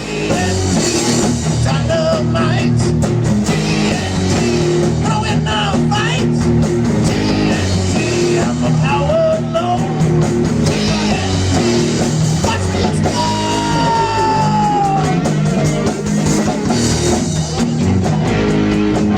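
Rock band playing, with electric guitar and drum kit, and one long note sliding down in pitch partway through.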